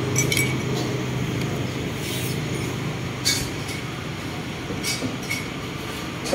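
Eatery ambience: a steady low rumble with a few short clinks of tableware scattered through it, the sharpest a little past three seconds in.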